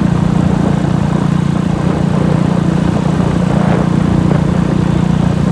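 Motorcycle engine running at a steady, unchanging pitch while riding.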